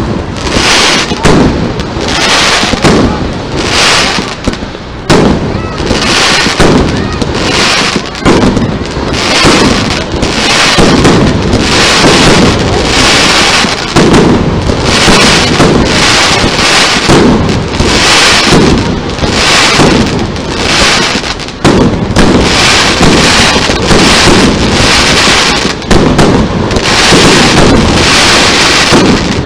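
Aerial firework shells bursting in a dense, continuous barrage, starting suddenly and staying loud throughout.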